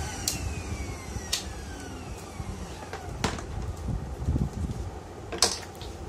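Kärcher WD1 wet & dry vacuum's motor coasting down after switch-off, a faint falling whine dying away. Four sharp clicks and knocks of plug and cord handling, the loudest near the end.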